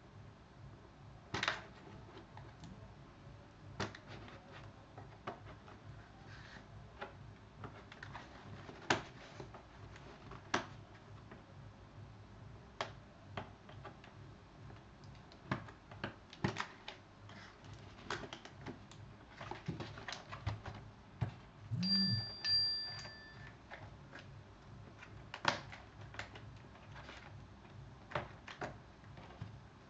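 Scattered, irregular clicks and taps from a new Logitech ultra-flat keyboard being handled during unboxing, with a brief steady high tone about 22 seconds in.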